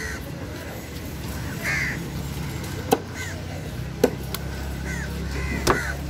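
Crows cawing about five times, with three sharp knocks of a blade striking the wooden cutting table.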